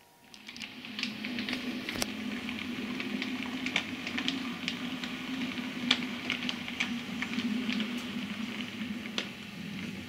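Model train running along the track: a steady motor hum with many irregular clicks from the wheels on the rails.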